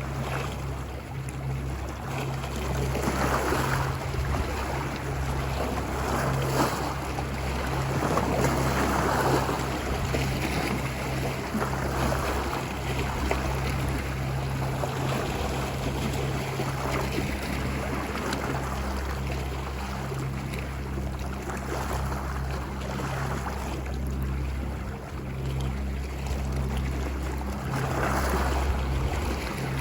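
Ocean waves washing ashore, a steady wash of surf that swells every few seconds as waves break, over a steady low rumble.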